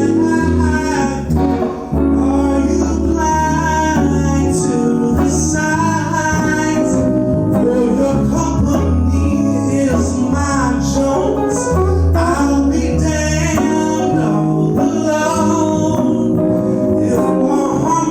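Live song performance: guitar accompaniment with a sung melody of held, bending notes over a steady bass line.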